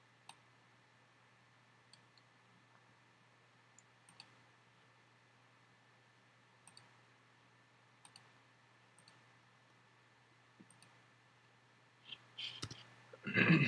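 Faint, scattered single clicks from working a computer's pointer, spaced a second or more apart, over a low steady background hum; a louder burst of sound comes near the end.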